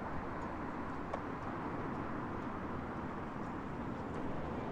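Steady outdoor urban background noise of road traffic running.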